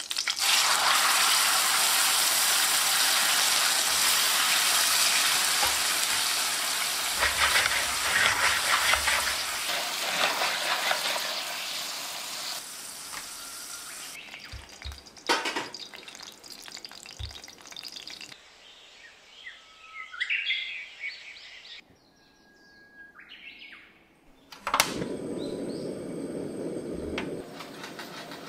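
Pasta cooking water hitting hot garlic olive oil in a steel frying pan, sizzling loudly at once and dying down gradually while it is stirred. About 15 seconds in there is a sharp click from the gas burner as the heat is turned off. Near the end the pan's starchy water and oil emulsion is bubbling softly.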